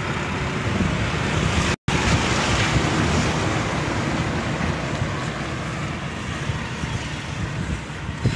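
Wind buffeting the phone's microphone, a steady rushing noise heavy in the low end, over road traffic on the bridge. The sound cuts out completely for a split second about two seconds in.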